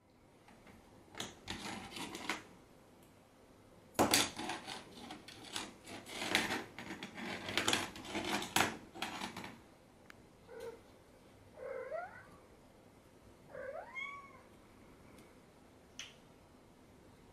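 A small plastic toy is batted and clatters against a wooden floor in quick irregular knocks and scrapes, with a kitten's paws skittering. About two-thirds of the way through a cat gives a few short meows.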